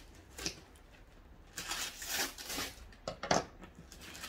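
Wrapping paper and tape on a gift box being cut and torn open: a few sharp clicks, then about a second of paper rustling and tearing, and another click late on.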